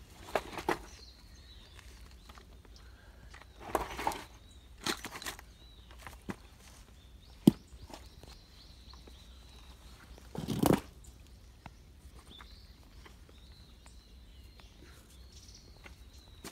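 Rocks being lifted and set in place by hand at a stony streambed: a few scattered knocks and scrapes of stone on stone, with a sharp clack about halfway through and a heavier thud about two-thirds in.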